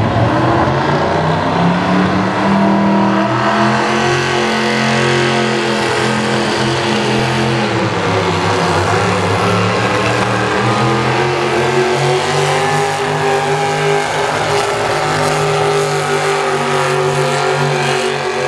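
V-8 engine of a modified pulling tractor running hard at high revs while pulling a weight-transfer sled, its pitch sagging and recovering a few times under the load.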